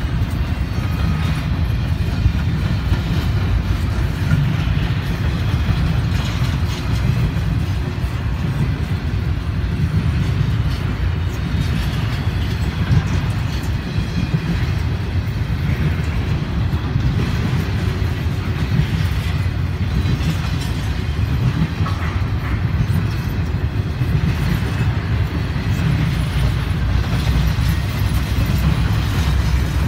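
A freight train of empty double-stack intermodal well cars rolling past, giving a steady rumble of wheels on rail.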